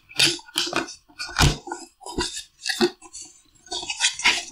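Cardboard shipping box being opened by hand: the lid's tuck flap pulled free and the lid lifted, giving a run of irregular cardboard scrapes, taps and rustles, with a louder knock about a second and a half in.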